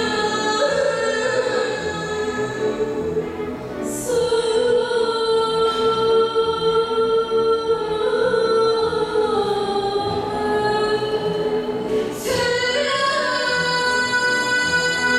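Two female singers holding long, sustained notes over a string orchestra, in the manner of classical or operatic singing. The held chord shifts about four seconds in and again about twelve seconds in.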